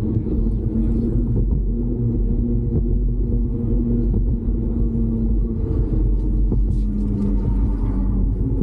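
Steady low rumble of wind and tyre noise from riding a bicycle along a paved path.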